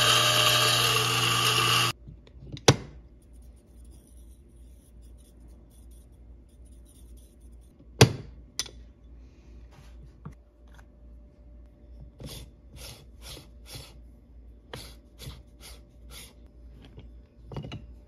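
Turin DF64 flat-burr coffee grinder running with a steady motor hum and whine, cutting off abruptly about two seconds in. Then come sharp metal knocks and clicks, with a quick run of about nine light taps a few seconds before the end, from the portafilter and its tools being handled.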